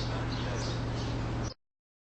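Short high chirps of small birds over a steady low hum and background noise, all cutting off abruptly about one and a half seconds in.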